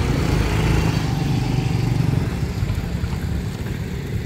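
Freight train of oil tank wagons pulling away: a steady low rumble of the diesel locomotive and rolling stock, easing slightly near the end.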